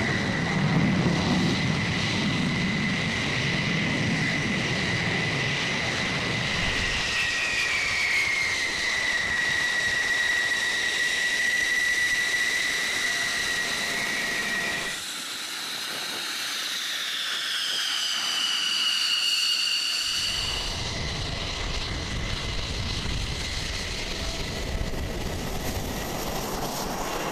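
F-16 fighter jet engines running at taxi power: a high, steady whine over a low rumble, the pitch sliding a little. About halfway the sound changes abruptly: the rumble drops out and a whine glides down in pitch, then the rumble comes back.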